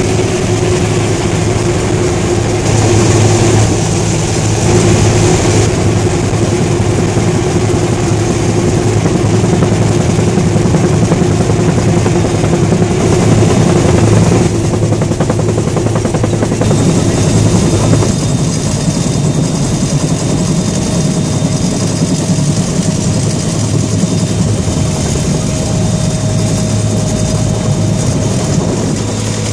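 Bell UH-1 Huey helicopter heard from inside the cockpit in flight: the turbine engine and rotor make a loud, steady drone. About halfway through, the sound shifts and a thin steady whine comes in.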